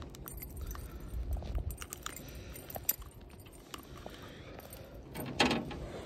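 Metal spinner lure blades and hook clicking and jangling in small sharp ticks as the lure is worked free from a northern pike's mouth, with a short louder burst near the end.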